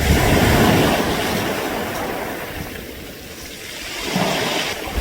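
Waves washing over a round-pebble beach, the water and the rolling pebbles making a dense rushing rattle. It surges at the start and fades over a few seconds, with a smaller surge about four seconds in.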